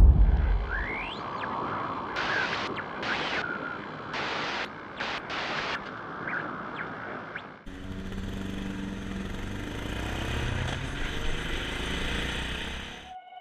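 Logo-intro sound effects: a loud low boom at the start that dies away, then hissing swells with short rising sweeps, some of them cutting in and out abruptly. About seven and a half seconds in, this gives way abruptly to the Yamaha MT-03's 660 cc single-cylinder engine running steadily under way with wind noise.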